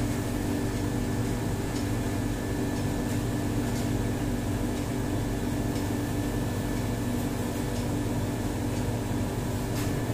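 Steady machine hum in a room, like a fan or air conditioner running, with a few faint ticks.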